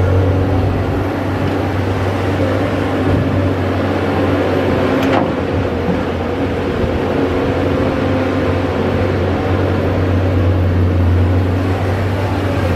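Caterpillar 320D hydraulic excavator's diesel engine running steadily under load as the machine digs and swings, with a low, even drone. A single sharp knock comes about five seconds in.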